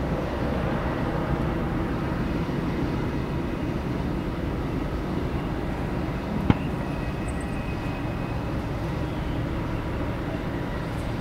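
Steady jet noise of a Boeing 747-400 freighter on final approach and landing, heard from beside the runway as a continuous rumble. A single sharp click comes about six and a half seconds in.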